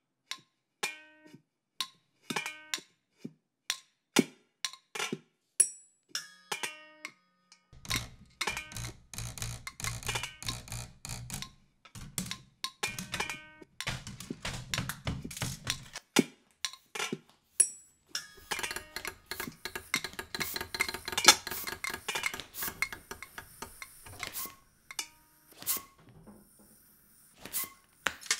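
Household objects played as improvised percussion. First come sparse single taps that ring briefly at clear pitches, like struck glass or metal. From about eight seconds in comes a dense run of clattering, rattling taps, and a second busy stretch of clicks and clatter later on, thinning to a few scattered strikes near the end.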